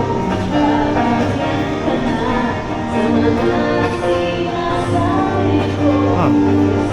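Music with singing, held notes over a steady bass line.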